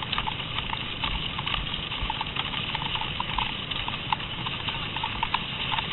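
Cross-country skis sliding and scraping over packed snow, with irregular clicks and taps, several a second, from ski poles planting and skis knocking as the skiers stride.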